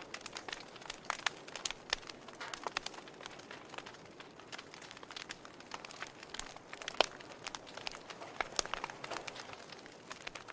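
Fireplace fire crackling: irregular small pops and snaps over a soft hiss, with one louder pop about seven seconds in.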